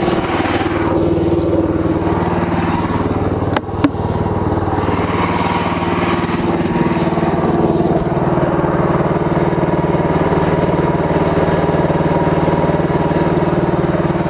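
Mygale 500 micro excavator's engine running steadily while the hydraulics work the arm, with one short knock about three and a half seconds in.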